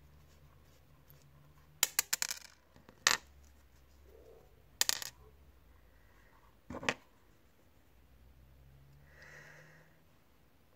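Small metal parts of a hair trimmer clicking and clinking as they are handled: a quick rattle of clicks about two seconds in, then single sharp clinks around three, five and seven seconds.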